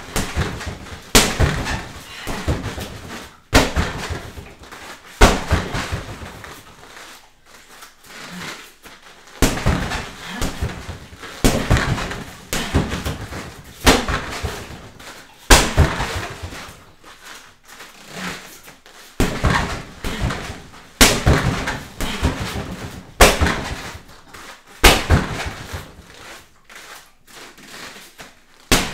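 Gloved punches and bare-shin roundhouse kicks striking a Century freestanding heavy bag in quick combinations of several hits, a new combination landing about every two seconds.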